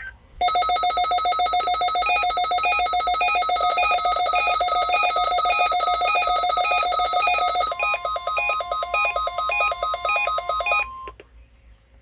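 A weather alert radio receiver sounding its warbling, beeping alarm, set off by the NOAA Weather Radio weekly test of the warning alarm. About 8 s in, a single steady warning tone joins it. Both cut off at about 11 s.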